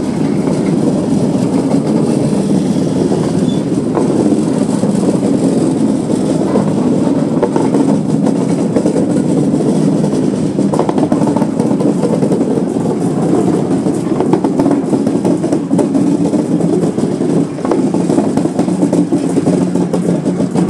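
Steady low rumble of a British Rail Class 60 diesel locomotive's engine idling at the head of a freight train of tank wagons that has drawn to a stand at a red signal.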